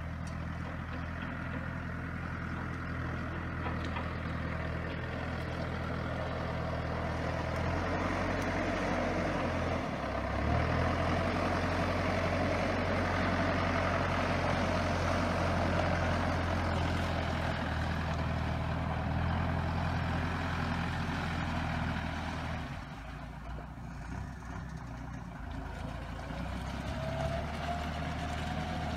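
Antonio Carraro TRX9900 compact tractor's diesel engine running steadily as the tractor drives over soft, wet ground. The engine note changes briefly about ten seconds in, grows louder through the middle, and drops somewhat after about 23 seconds.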